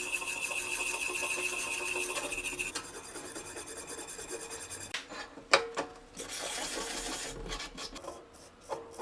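Wire brush scrubbing rusted steel bayonet scabbard parts: rapid rasping strokes, busiest in the first few seconds, with a single sharp knock about five and a half seconds in.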